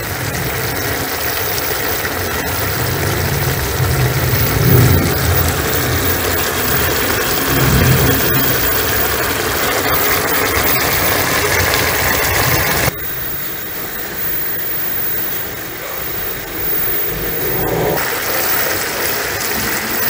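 Pan of spaghetti in cherry tomato and squid sauce cooking on a gas stove: a steady rushing, bubbling noise. It drops abruptly to a quieter level about two-thirds of the way through, then rises again near the end.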